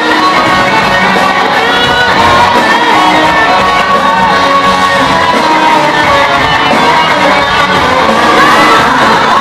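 Loud live band music with electric guitars, drums and singing, mixed with shouts. It is heard through a phone microphone in the audience.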